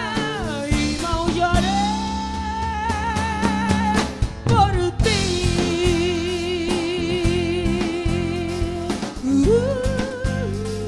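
Live band music: a woman singing long held notes with vibrato, the pitch dropping to a low sustained note about halfway and rising again near the end, over acoustic guitar, bass and drum kit.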